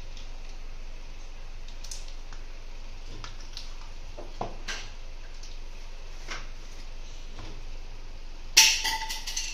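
Light clicks and knocks of kitchen utensils and containers being handled on a countertop, then near the end a louder clatter with a short ringing tone.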